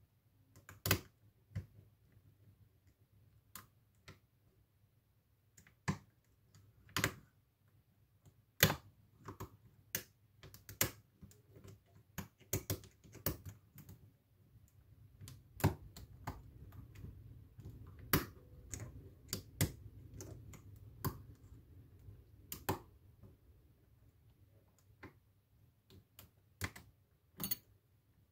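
Irregular small metallic clicks and ticks of a hook pick working the pins of a pin-tumbler challenge lock, with a bent Allen key held in the keyway as the tension wrench. The clicks come unevenly, some sharp and loud, with quieter stretches in between.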